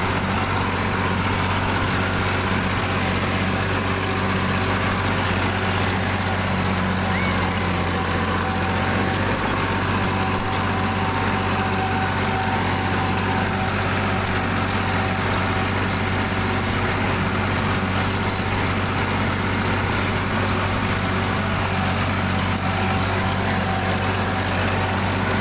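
Sonalika tractor's diesel engine running steadily as the tractor is driven.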